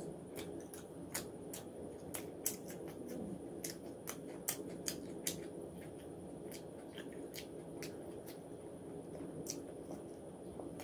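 Close eating sounds: a person chewing fried fish and rice by hand, with many sharp irregular mouth clicks and smacks.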